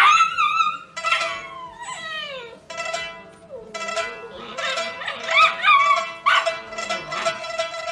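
A dog howling and whining in a run of pitched cries that slide up and down, some falling long and low, over background music.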